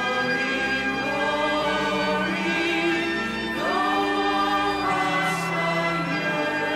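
Soundtrack music: choral singing with long held notes, voices sliding up into a new held note about three and a half seconds in.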